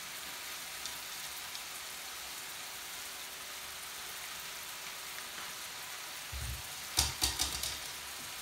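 Walleye fillets frying in butter in a pan, a steady sizzle. About seven seconds in, a short run of knocks and clatter.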